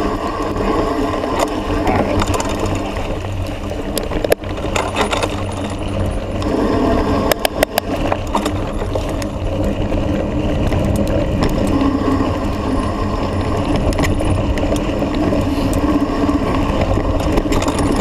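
Mountain bike rolling fast downhill on a dirt trail, heard from a handlebar-mounted camera: a steady rumble of tyres and wind on the microphone, with the bike rattling and a few sharp knocks from bumps.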